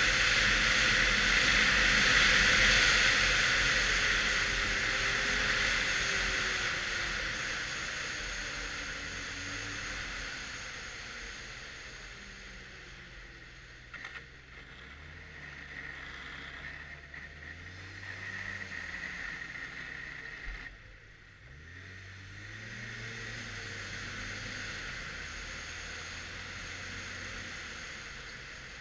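Arctic Cat XF 1100 Turbo snowmobile under way, its turbocharged three-cylinder four-stroke engine running over a loud rushing hiss of wind and track. The hiss fades over the first several seconds as the sled slows, then the engine note rises and falls with the throttle, dropping away briefly about three-quarters through before picking up again.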